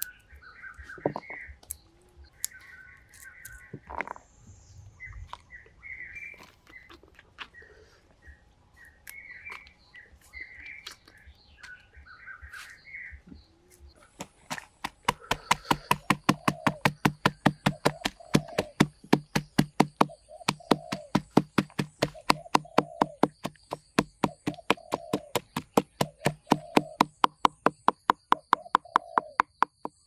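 Birds calling in the first half, with a few scattered knocks. From about halfway through, a knife chops rapidly and evenly on a board, about four strokes a second.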